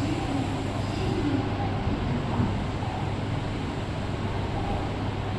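Tokaido Shinkansen N700S train pulling out of the station, a steady rumble of rolling and running noise.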